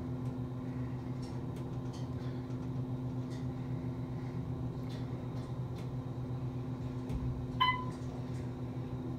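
Elevator car descending with a steady low hum, and a single short electronic ding near the end.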